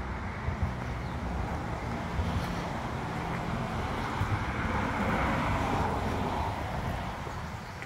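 A motor vehicle running steadily, with wind noise on the microphone; it grows a little louder about five seconds in, then eases off.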